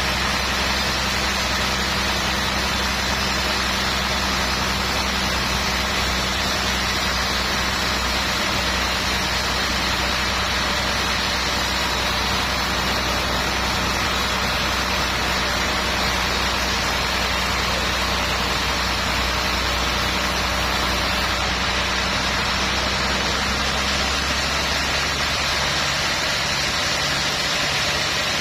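Sawmill machinery running steadily: a constant low engine-like hum under an even hiss, shifting slightly near the end.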